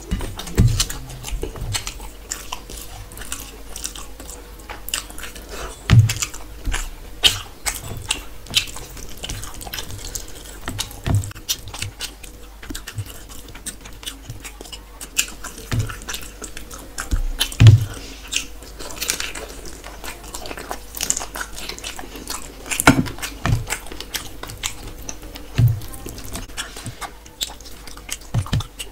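Close-miked eating: chewing and mouth smacks on rice and curry, with wet squishing of fingers mixing rice and curry on a steel plate. Irregular clicks and soft knocks throughout.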